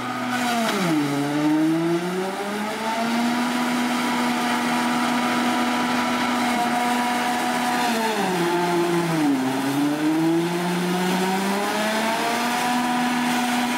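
Claas Jaguar 850 forage harvester chopping grass at full working speed: a loud, steady engine and chopper hum. Twice, about a second in and again near nine seconds, its pitch sags and climbs back, the engine pulled down under a heavy load of grass and recovering.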